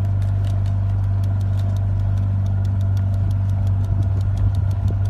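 A motorboat engine running steadily: a low, even hum with a fast, regular light ticking over it.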